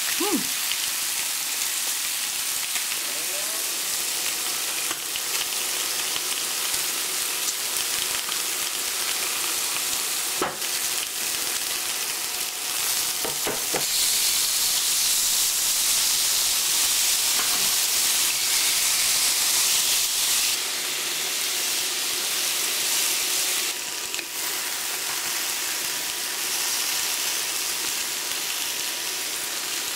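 Pork belly, kimchi and vegetables sizzling on the hot plate of an electric smokeless grill, a steady frying hiss that grows louder for several seconds in the middle. A few sharp clicks of metal tongs on the grill plate are heard.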